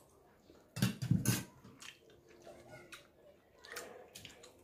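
Close-up eating sounds: a loud burst of sipping and swallowing beef soup about a second in, then faint crisp clicks near the end as a slice of raw pumpkin is bitten.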